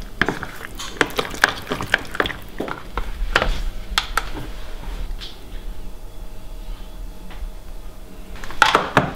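Plastic spoon stirring and scraping a thick mix of Greek yogurt and oats in a plastic tub, with a quick run of small clicks and knocks for about the first four seconds. Then quieter handling, and a louder clatter shortly before the end.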